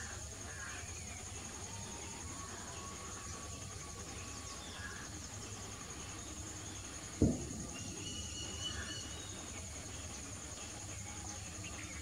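Outdoor ambience of insects chirring steadily at a high pitch, with scattered short bird calls. A single sharp thump about seven seconds in is the loudest sound.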